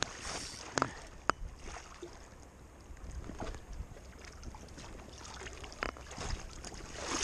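Shallow river water sloshing against a rocky bank, with a few sharp clicks about one second in and again near the six-second mark.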